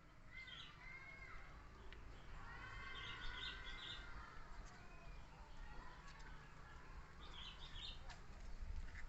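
High-pitched animal calls: a few short, gliding squeaks and chirps in three bursts, over a low background rumble.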